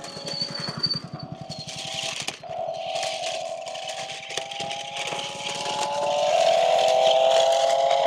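Toy RC stunt car's electric motors whining at a near-steady pitch as it drives over gravel, with rapid rattling of its wheels and body over the stones in the first couple of seconds. The whine steps up and grows louder about six seconds in as the car comes close.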